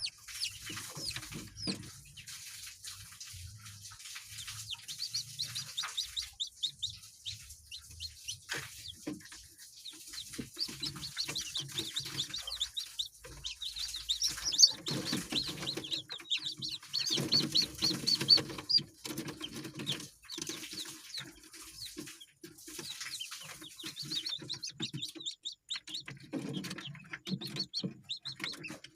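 A flock of ayam kampung, Indonesian native chickens, clucking on and off, with many short, high peeping calls over the clucks.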